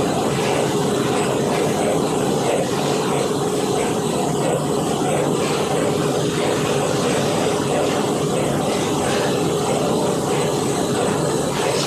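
Running machinery: a loud, even mechanical drone with a constant hum.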